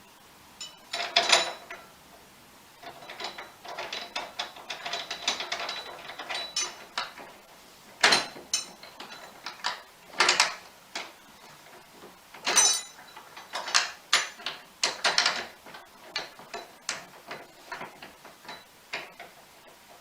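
Bed-frame assembly noises: runs of quick clicks and sharp knocks as metal frame parts are hooked together and screwed in, the loudest knocks standing out every couple of seconds in the second half.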